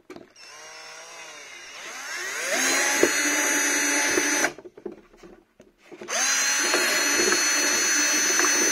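Cordless drill run twice. It first turns slowly with the speed wavering, then rises to full speed and runs steadily for about two seconds before stopping. A second later it spins up quickly and runs steadily again. It is boring 3.5 mm holes in a thick plastic RC car body.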